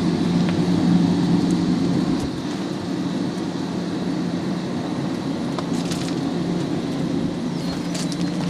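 300-horsepower Caterpillar diesel engine of a tub grinder running steadily, a constant low hum, with a few light clicks about six and eight seconds in.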